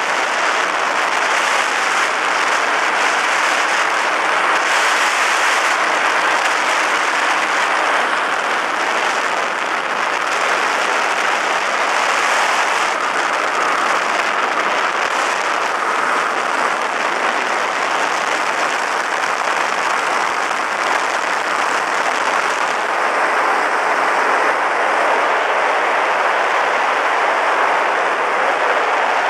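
Steady, loud rush of wind buffeting the microphone aboard an open weight-shift microlight trike in flight, mixed with the drone of its engine and propeller.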